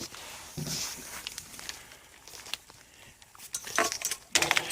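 Light, scattered clicks and knocks of things being handled and moved, with a brief murmur of a voice just under a second in.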